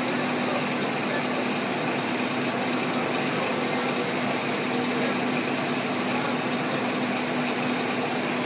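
Fire truck diesel engines running steadily, a continuous drone with one held low hum under a steady rushing noise.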